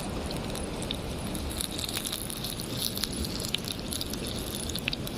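Snacks frying in hot oil, sizzling with many small crackles, over a steady low rumble.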